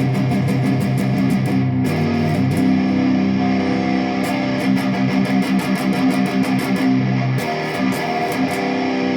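Jackson Dinky electric guitar played with its tone knob turned all the way down, wired through a 104J (0.1 µF) tone capacitor. It plays picked chords and notes, changing chord about two seconds in and again near the end.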